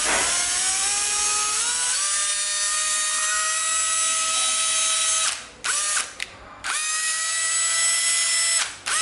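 National EZ6402 cordless drill running with no load as its trigger is squeezed. The motor whine rises in pitch over the first two seconds and then holds steady. It stops about five seconds in, gives a short blip, and runs again twice more in shorter spells.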